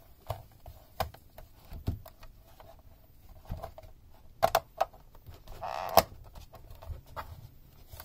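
Handling noise: scattered clicks and light knocks of plastic as the aux cord and its 3.5 mm plug are pressed back into the storage channel on the back of a Sony ICF-C707 clock radio. The sharpest clicks fall a little after four and a half seconds and at six seconds.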